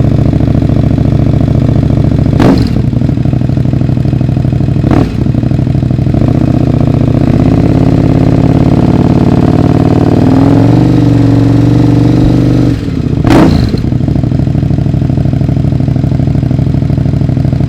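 KTM 1050 Adventure's V-twin engine idling through a Leo Vince LV One Evo slip-on exhaust, blipped sharply twice in the first five seconds. The revs are then held and climb slowly for several seconds, drop back, and get one more sharp blip before settling to a steady idle.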